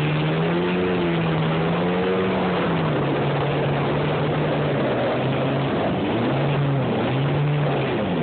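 Jet ski engine running at speed over the water, with rushing water and wind noise. Its steady note rises a little early on, then wavers and dips several times in the second half as the craft bounces over the chop.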